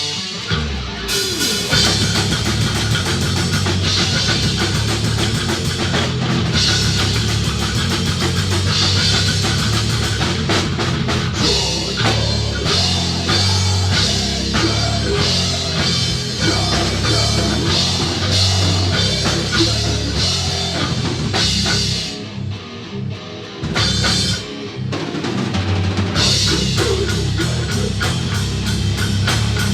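Rock band playing live: guitar over a driving drum kit. About two thirds of the way through, the band briefly drops back, then comes back in at full strength.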